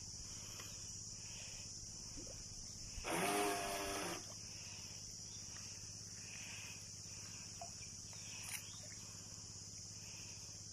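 Steady high-pitched insect chorus. About three seconds in, a louder pitched sound lasting about a second cuts across it.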